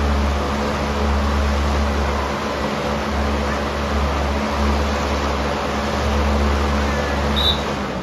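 Large electric fan running steadily with a low hum, blowing air for a macaw's green-screen flight shot; it winds down near the end.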